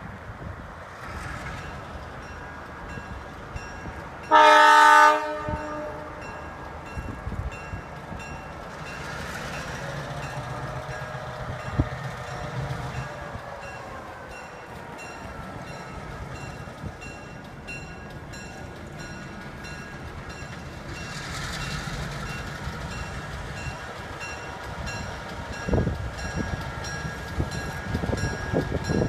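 EMD GP9 diesel locomotive sounds one short horn blast about four seconds in, the loudest sound, then its diesel engine runs as the train moves, with a thin steady squeal of wheels on rail in the later part.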